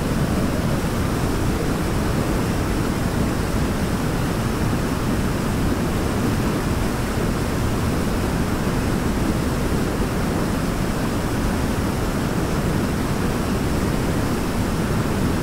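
Rushing water of a torrent: a steady, even noise that does not change.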